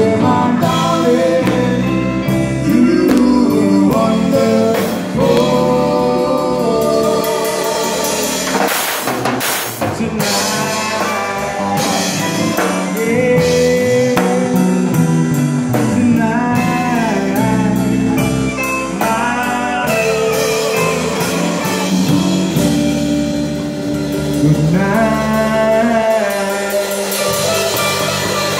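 Live band music: a man sings while playing a drum kit, with cymbals and other instruments underneath.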